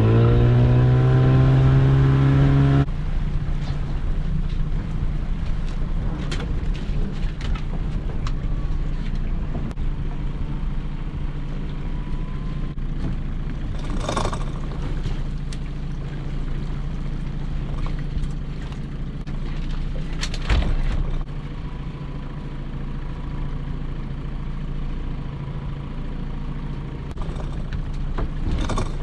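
Small fishing boat's engine revving up over the first few seconds, then running steadily under way, with a few sharp knocks.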